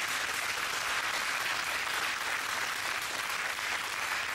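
Studio audience applauding: many hands clapping in a steady, dense patter.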